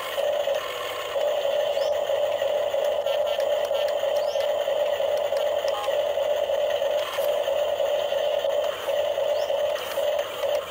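Small electric gear motors of a Huina RC excavator whirring steadily as the arm and bucket move, with several brief pauses where one movement stops and the next begins.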